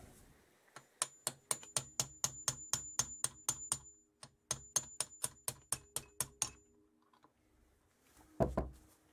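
Light metal taps, about four a second in two runs with a short break, each with a brief metallic ring, as the piston (gudgeon) pin is tapped through to free the last piston from a 1977 Kawasaki KZ650 engine. A single heavier knock comes near the end.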